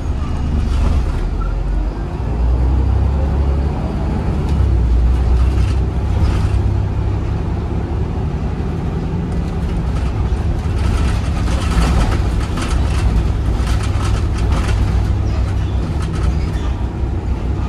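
Volvo B7RLE bus's six-cylinder diesel engine running under way, heard from inside the bus, its low note shifting in pitch a few times. Short rattles and knocks cluster in the second half.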